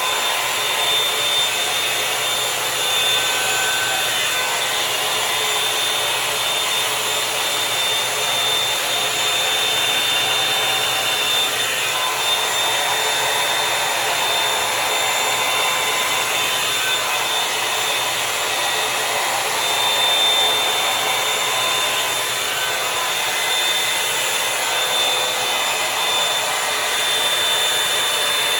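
Revlon One Step Volumizer hot-air brush dryer blowing steadily while drying hair: an even, loud rush of air with a faint steady high whine from the motor.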